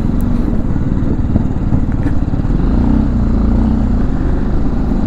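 BMW G310GS motorcycle's single-cylinder engine running steadily while riding, a low pulsing drone with road and wind noise.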